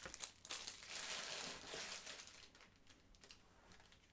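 Faint crinkling of a foil trading-card pack wrapper being handled. It fades after about two and a half seconds, leaving a few light ticks.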